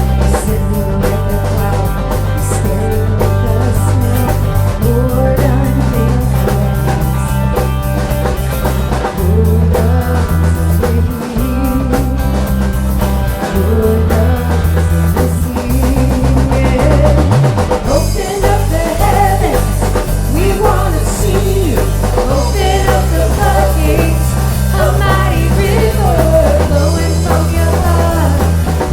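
Live rock band playing a song: drum kit, bass guitar and electric guitar, with singing that grows busier in the second half.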